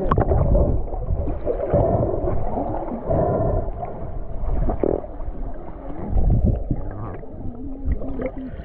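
Muffled gurgling and rumbling of water and air bubbles around a submerged camera, stirred by swimmers moving nearby.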